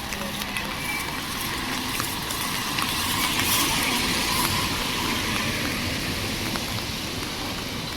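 A vehicle passing on a wet road, its tyres hissing; the sound swells a few seconds in and then fades.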